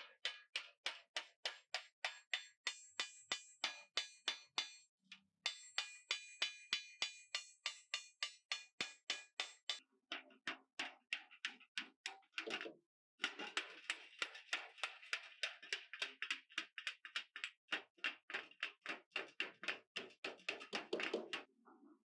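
Hammer blows on sheet metal, about four a second, each ringing briefly, in long steady runs broken by short pauses about five and thirteen seconds in.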